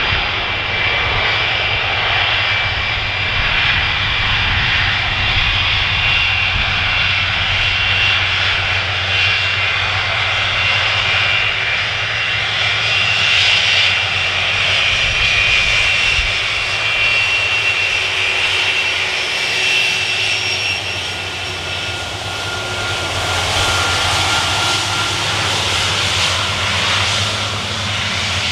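Jet airliner engines on an arriving aircraft, running loud and steady with a high fan whine. A further lower whine comes in about two-thirds of the way through. Wind buffets the microphone with a low rumble.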